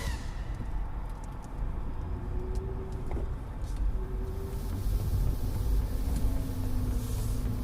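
2012 Jeep Liberty driving off-road: a steady low rumble from the vehicle and its tyres, with a few light clicks and rattles in the first few seconds.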